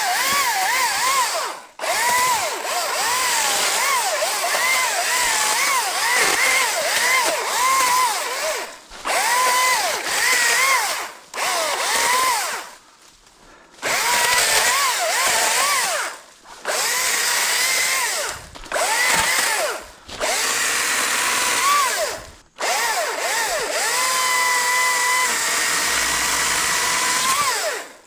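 ECHO DCS-2500T cordless top-handle chainsaw cutting wood in about ten bursts with short pauses between them, its electric motor whine dipping under load and climbing again as each cut frees.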